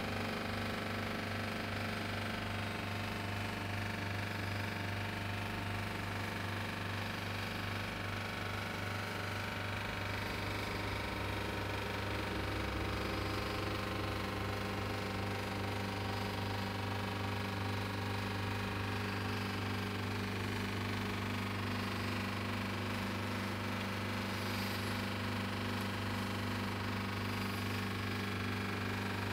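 Liebherr refrigerator's compressor running, a steady hum with a crackling sound over it.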